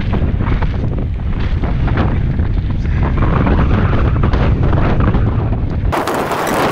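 Commencal Meta SX mountain bike rattling down a rough gravel track at speed, with tyres crunching over stones and heavy wind buffeting on the microphone giving a loud, deep rumble. About six seconds in, the rumble abruptly drops away and the sound turns thinner and hissier.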